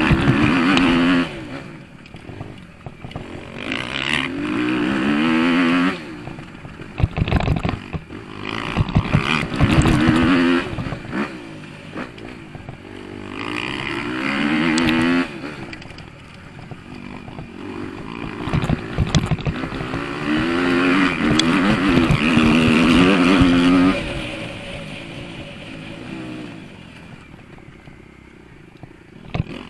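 Motocross bike engine heard onboard, revving up hard and easing off again and again as the bike climbs and jumps. Clusters of sharp knocks and rattles come about seven to ten seconds in, and the engine falls back to a lower, quieter note near the end.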